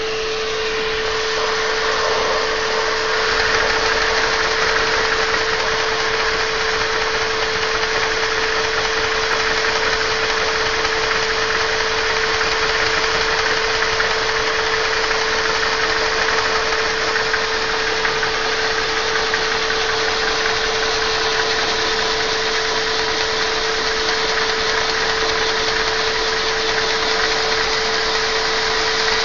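Household vacuum cleaner running with a steady whine, its suction driving a Lego Technic double-acting vacuum engine. The noise gets a little louder over the first few seconds and then holds steady.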